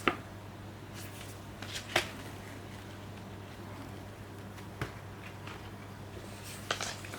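Blu-ray packaging being handled by hand: a few sharp clicks and taps with light rustling, the loudest near the start and about two seconds in, over a steady low hum.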